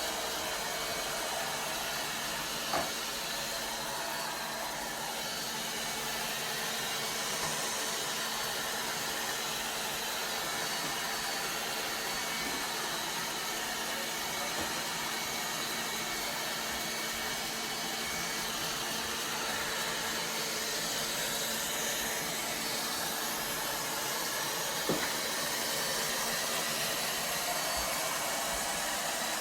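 ILIFE A12 Pro robot vacuum running with a steady suction-fan whir and a faint whine, with two small clicks, one a few seconds in and one near the end.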